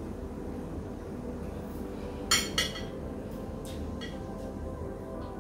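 Tableware clinking: two sharp ringing clinks about a quarter second apart, with a few fainter clicks of utensils on dishes.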